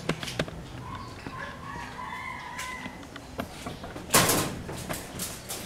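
A rooster crowing in the background: one long call of about two seconds. About four seconds in comes a short, loud burst of noise.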